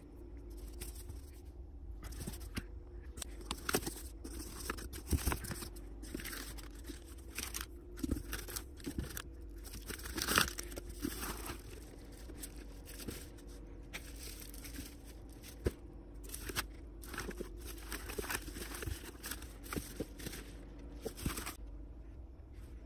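Cardboard shipping box and bubble wrap being handled and opened: packing tape tearing, cardboard flaps scraping and plastic crinkling in irregular bursts, busiest about halfway through, over a steady low hum.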